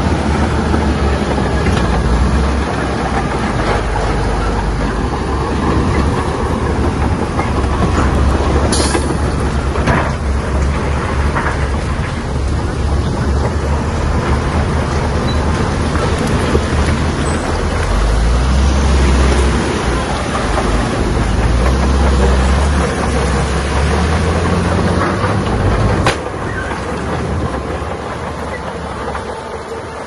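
Shantui bulldozer working, its diesel engine running with a deep, steady rumble. A few sharp knocks come through, the last near the end, after which the sound is quieter.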